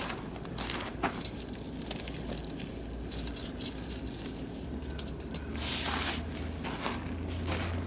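Oak and beech wood fire in a barbecue grill crackling, with irregular sharp pops and a steady low rumble underneath.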